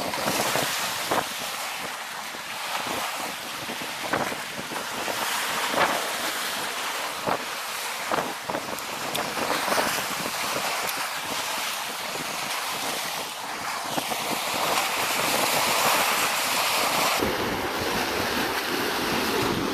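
Sea waves washing and splashing against the rocks, with wind buffeting the microphone, heavier near the end. A few light clicks are scattered through it.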